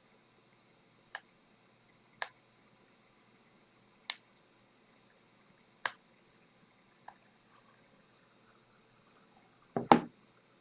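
Sharp clicks of small hand tools working on a laptop's display assembly, five spaced a second or two apart, then a louder clatter near the end.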